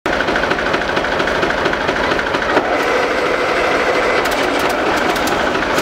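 Oliver HG crawler tractor's engine running at a steady idle, with a few light clicks about four to five seconds in.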